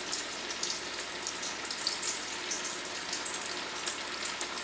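Breaded zucchini sticks deep-frying in hot oil at 350 °F: a steady sizzle with fine crackling.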